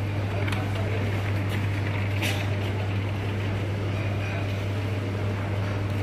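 Supermarket background: a steady low hum with indistinct voices in the background and a few faint clicks.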